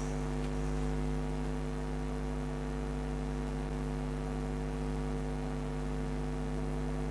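Steady electrical mains hum: a low, constant buzz with several overtones, unchanging throughout.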